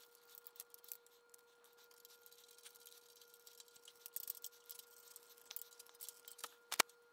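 Screwdriver working a screw in a work lamp's metal mounting bracket: faint scattered clicks and scrapes of metal on metal, with one sharp click near the end. A faint steady hum runs underneath.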